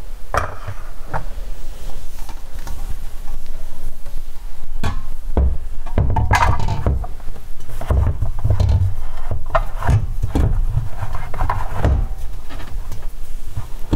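Reverse-osmosis water storage tank being shuffled into place on a cabinet floor, with irregular knocks, scrapes and low thumps.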